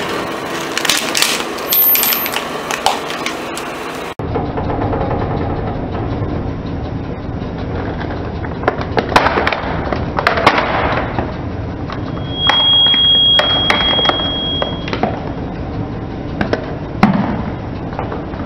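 A car tyre rolling slowly over a die-cast toy van on concrete, crushing it with scattered cracks and snaps of metal and plastic under a low rolling rumble. A high squeal lasts a couple of seconds in the second half, and a sharp snap comes near the end.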